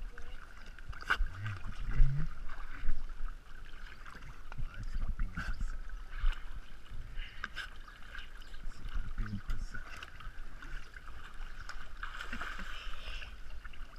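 Pool water sloshing and splashing around a camera sitting at the water's surface, with scattered small knocks of water against it.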